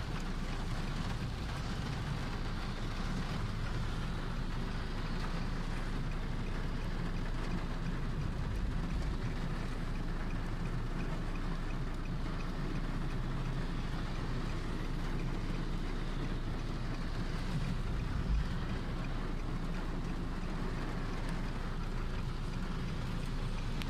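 Heavy rain drumming on a car, heard from inside the cabin over a steady low rumble of the car and traffic on the wet road.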